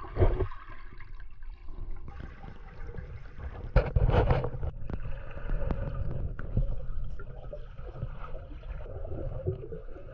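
Water sound recorded underwater by an action camera: a muffled low rush with gurgling and scattered knocks, and a louder gurgling burst about four seconds in.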